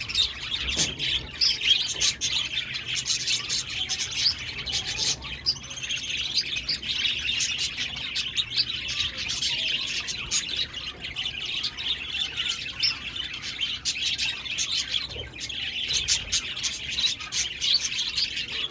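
Several budgerigars chirping and chattering continuously, with a dense mix of warbles and short sharp clicks.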